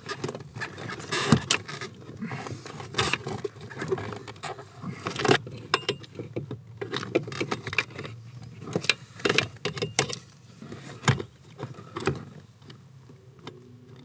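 New ignition lock cylinder, key in it, being jiggled and pushed into a Mercedes 300D's steering column lock housing: an irregular run of metal clicks, knocks and key jingles that thins out near the end. The lock is not seating.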